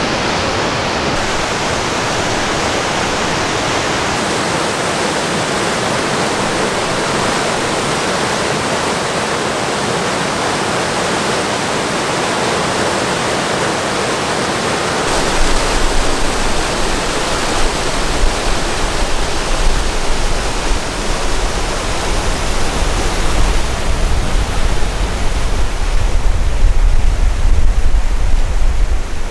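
Rushing whitewater of a mountain creek cascading over granite boulders, a steady dense roar. About halfway through it grows louder and uneven, with a deep rumble added.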